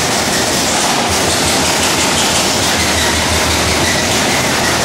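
Trumpf TC500R 27.5-ton CNC punch press punching sheet steel in a fast, continuous clatter of strokes.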